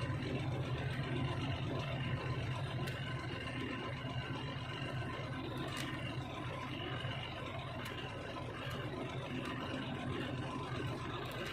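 Steady low drone of a moving truck's engine with road noise, holding an even level throughout.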